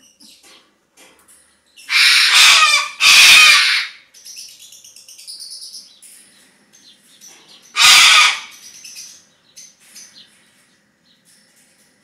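Corella giving three loud, harsh screeches, about two, three and eight seconds in, with softer bird chirps between them.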